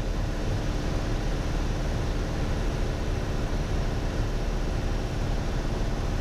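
Piper Warrior's four-cylinder Lycoming piston engine and propeller droning steadily in cruise-descent at reduced power, with airflow noise over the airframe.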